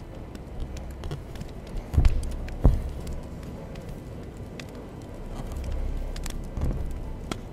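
Embroidery needle and white thread being drawn through cotton fabric stretched in a wooden hoop: soft scattered clicks and rustles of stitching, with two sharp thumps a little over two seconds in.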